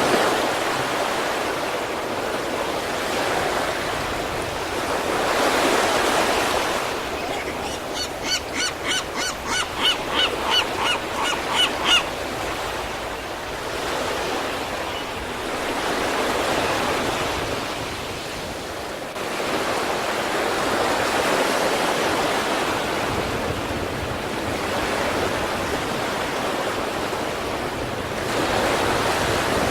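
Sea waves breaking and washing up on the East Sea shore, the surf swelling and ebbing every few seconds. Partway through comes a quick run of about a dozen short, pitched calls, roughly three a second, each louder than the last.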